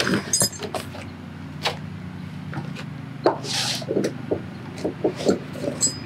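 Retractable ratchet strap being unhooked and reeled in by hand: scattered clicks and knocks from the ratchet mechanism, a short rush of webbing about three and a half seconds in, and bright metal clinks of the hook near the start and end. A steady low hum runs underneath.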